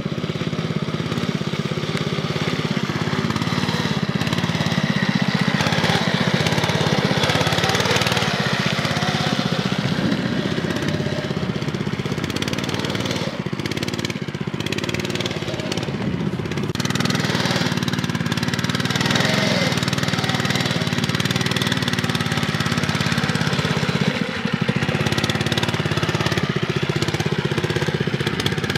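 Engine of a Motomir Scout-7 Botsman fat-tyred mini-bike running under load as it ploughs through deep mud. Its note rises and eases with the throttle, and runs a little quieter for a few seconds in the middle.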